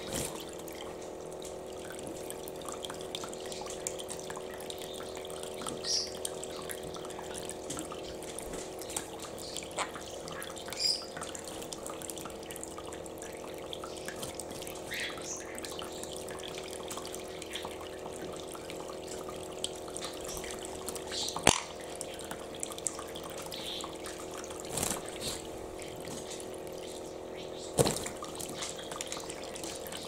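A toy bird-bath fountain running: a thin stream of water pours steadily from its spout into the plastic basin over the steady hum of its small pump. A sun conure bathing in the basin splashes now and then, with sharp splashes about two-thirds of the way through and near the end.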